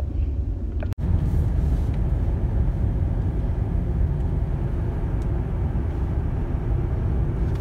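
Steady low rumble of a car driving, heard from inside the cabin: engine and road noise. The sound drops out for an instant about a second in.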